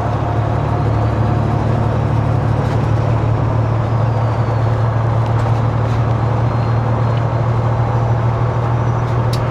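Peterbilt 389 glider semi-truck's diesel engine and road noise, heard from inside the cab while cruising at steady speed: an even low drone that does not change.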